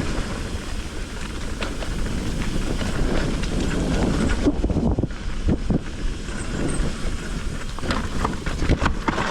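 Mountain bike rolling fast down a wet, rocky trail: tyres hissing and crunching over rock and mud, with the frame and parts rattling and knocking over the bumps.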